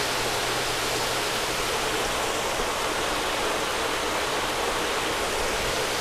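Steady rush of running water splashing into the fish vats of a recirculating aquaculture system.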